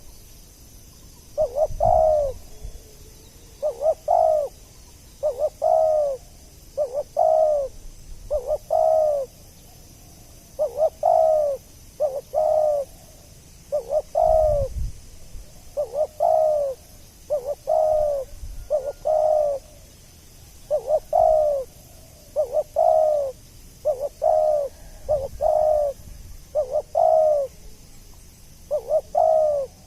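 Spotted dove (tekukur) cooing over and over: short coos that rise and fall in pitch, coming in pairs and threes with brief pauses between.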